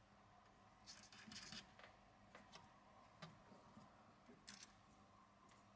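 Near silence with a few faint clicks and light scraping of hands handling a lathe chuck as it is fitted onto the mini lathe's spindle flange.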